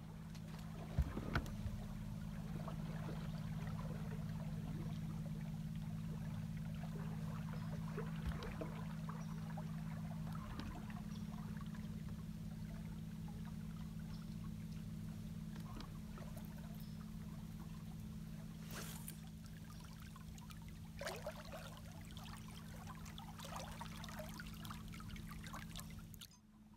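Mercury outboard motor running at low speed, a steady low hum, with water trickling and washing past the hull. A couple of sharp knocks come about a second in, and the hum changes about ten seconds in as one of its two tones drops out.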